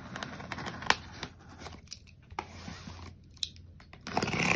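A mail package being opened by hand: packaging rustling and tearing, with a few sharp clicks.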